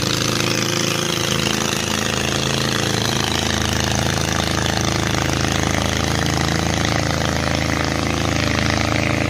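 Small river boat's outboard motor running steadily under way, a loud even drone with a buzzing edge; it breaks off abruptly at the very end.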